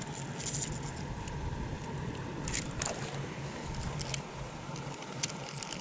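Small metal reel of a miniature pen-style fishing rod being handled and cranked: scattered light clicks and rubbing, with one sharp click near the end, over a low steady background rumble.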